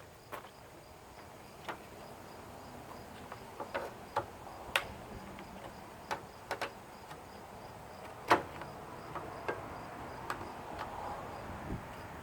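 Scattered knocks and clinks of tools and parts being handled while an electric lawn mower is taken apart, about a dozen in all, the loudest about eight seconds in. Crickets chirp faintly and steadily underneath.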